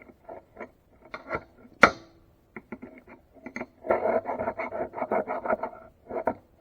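A small tool scraping and clicking against the aluminium body of a utility-knife blade holder as packed grime is cleaned out of it. A few light clicks and one sharper clack come first, then a fast run of short scraping strokes, about six a second.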